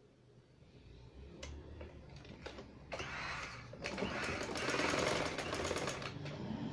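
Sewing machine stitching, with a few separate clicks at first and then a fast, even run of stitches from about halfway in, easing off near the end. The stitching is the topstitching along the edge of a kameez neckband that fixes the band in place.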